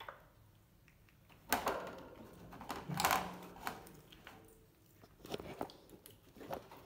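A baby monkey biting and chewing fresh lotus seeds: irregular crunches and clicks, the loudest about one and a half and three seconds in.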